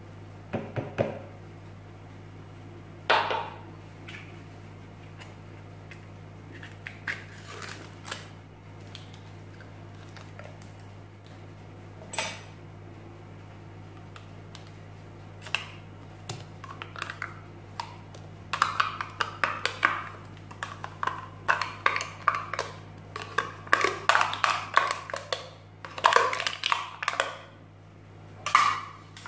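Metal spoon scraping yogurt out of a plastic pot and clinking against a plastic mixing bowl: a few scattered clicks at first, then rapid scrapes and taps through the second half. A steady low hum runs underneath.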